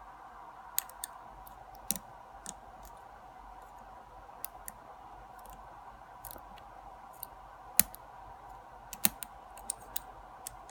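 Lock pick and tension wrench working the pins of a pin-tumbler padlock, which the picker thinks has only standard pins: scattered light clicks at irregular intervals over a faint steady hum.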